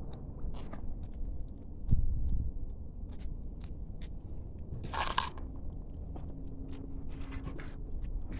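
Several hungry kittens chewing and biting meat scraps, a run of small clicks and smacks of eating. There is a low thump about two seconds in and a brief louder noise about five seconds in.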